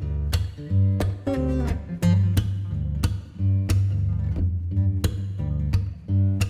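Background music led by plucked guitar, with a steady rhythm and a strong bass line.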